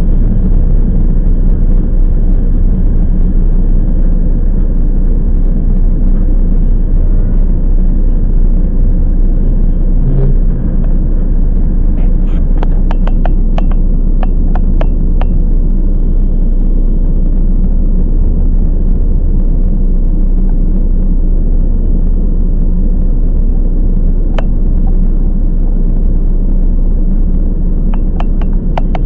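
Ride noise inside a Toyama Chiho Railway 10030 series electric train under way: a steady low rumble of wheels on rail, with clusters of sharp clicks about twelve seconds in and again near the end.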